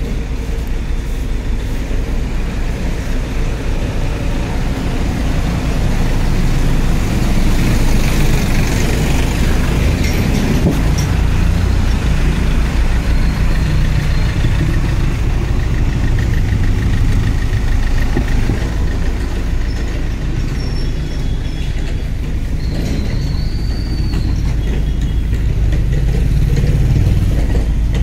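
Steady low rumble of a car and its surroundings, a continuous noisy drone with no distinct events.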